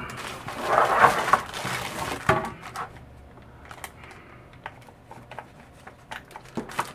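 Handling of a power cord and power-supply brick: rustling for the first couple of seconds, a sharp click a little after, then scattered light clicks and taps as the mains cord's plug is pushed into the brick.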